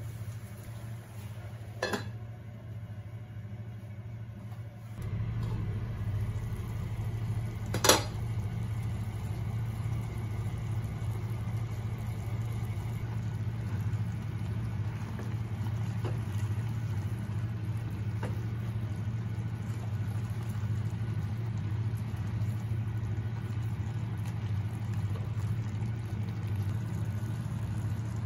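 A cooking utensil knocks twice against an aluminium pot while a stir-fry is stirred, the second knock sharp and loud. A steady low hum from a kitchen appliance starts about five seconds in and continues throughout.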